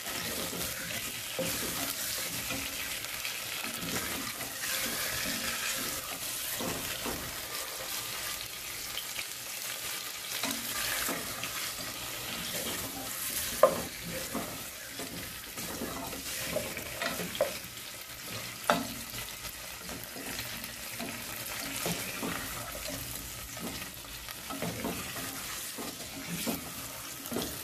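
Raw chicken pieces sizzling in hot oil in a pot, turned with a plastic spatula that scrapes and knocks against the pot now and then, with one sharper knock about halfway through.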